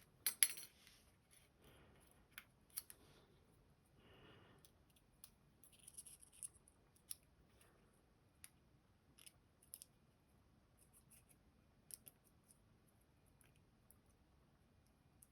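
Faint, sparse metal clicks and small scrapes of a thin shim being worked into a dimple lock cylinder while the plug is being removed, with a couple of sharper clicks about half a second in.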